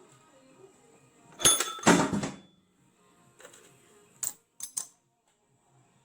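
Sharp metallic clicks and clatter, like grinder parts such as a nut, flange or disc being handled and set down: two loud ones about a second and a half and two seconds in, then three lighter clicks later on.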